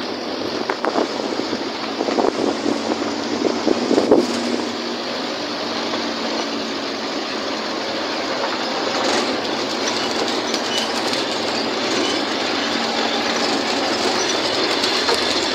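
Steady running noise of a moving vehicle, with a burst of rattles and knocks in the first few seconds.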